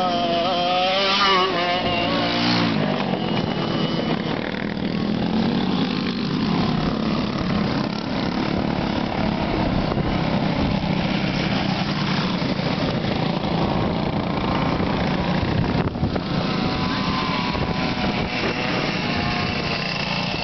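Two-stroke racing kart engines, among them a Yamaha KT100 with an expansion pipe, revving up and down as the karts race around the track. The wavering engine notes are loudest as karts pass close, near the start and again near the end.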